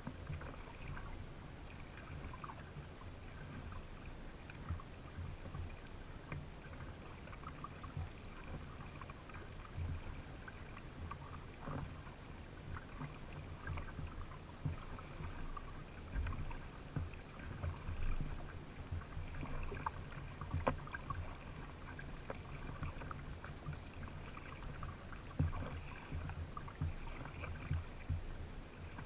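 Kayak paddling: double-bladed paddle strokes dipping and dripping into the water, water lapping at the hull, with scattered small knocks and splashes over a steady low rumble.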